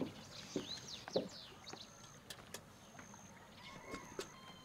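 Faint outdoor ambience of small birds chirping, with a thin high steady trill that comes and goes and a few short soft knocks.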